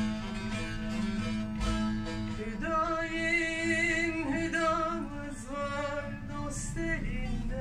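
Plucked long-necked lute playing a folk melody; a couple of seconds in, a singing voice comes in over it with long held notes that waver in pitch.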